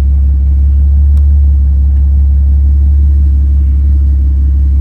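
1988 Jeep XJ engine idling steadily, a low even hum with a regular pulse in it.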